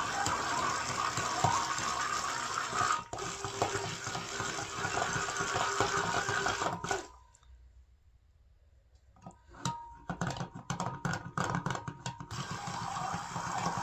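Stick blender running in pink cold-process soap batter in a glass jug, mixing it toward trace so it thickens. About halfway through it switches off for roughly two seconds. It then comes back in short stop-start pulses with light knocks before running steadily again.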